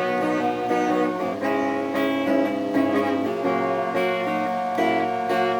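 Acoustic guitar strummed chords in an instrumental passage of a folk song, with no singing.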